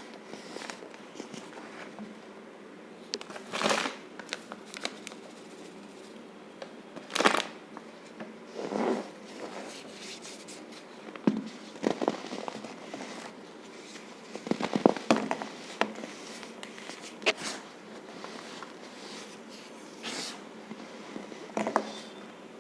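Baking soda and cornstarch mixture being crushed, giving squeaky crunches in about ten separate bursts, some in quick clusters, between quiet pauses.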